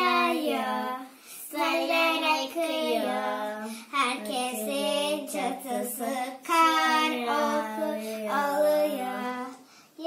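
A child singing a song in phrases of long held notes, with short breaks between phrases.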